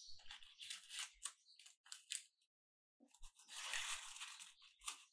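Paper cupcake cases crinkling and crackling as they are handled, in short bursts of crackles for about two seconds. About three seconds in comes a denser paper rustle as a filled case is set into a cardboard box.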